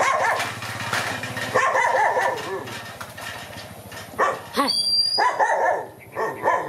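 Short pitched animal calls, each arching up and down in pitch: a run of them about one and a half seconds in, then several more in quick succession near the end.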